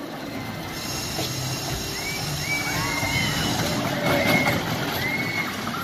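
A small dragon kiddie roller coaster train rolls over its steel track, with a rumble that grows louder about a second in. Short, high, arching squeals come and go over it through the middle.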